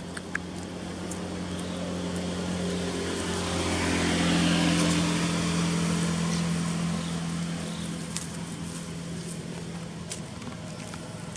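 A motor vehicle passing by: a steady engine hum with a wash of road noise that swells to its loudest about four seconds in, then slowly fades.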